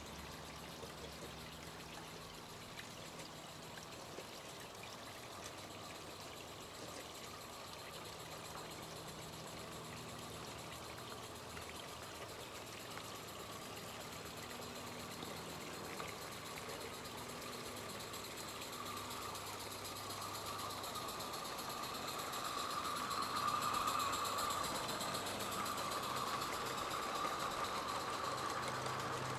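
Live-steam garden-railway locomotive and its coaches running on the track: a steady hissing, rushing sound that grows louder about two-thirds of the way through as the train draws close.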